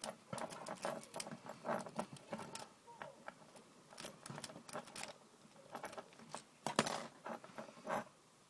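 Bogota rake being worked in and out of a padlock's keyway against tension from a tension wrench: irregular bursts of small metallic clicks and scraping as the rake runs over the pin tumblers.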